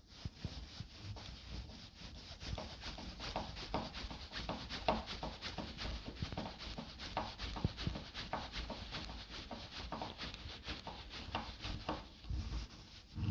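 Screws being driven by hand into a door handle's backplate: a rapid, uneven run of small clicks and scrapes from the screwdriver and screw turning in the door.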